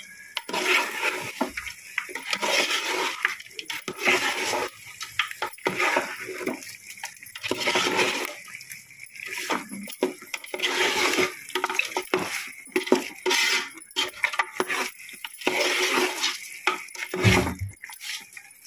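A slotted metal spoon stirring and scraping thick mutton masala in a metal pot, with rasping scrapes and clinks of metal on metal, as chilli powder, coriander powder and salt are mixed in.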